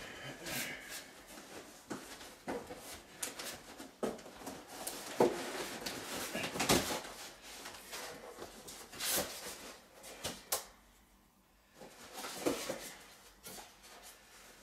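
Cardboard TV box being opened by hand: the cardboard flaps and sleeve scrape and rub, with irregular knocks as the tabs are worked and cardboard inserts are lifted out. There is a short pause about three-quarters of the way through.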